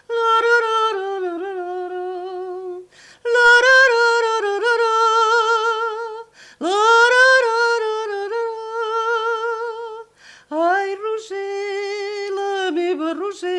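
An elderly woman sings a song's melody unaccompanied and without words, since she no longer remembers the lyrics. She sings four long phrases with a wide vibrato, each followed by a short pause.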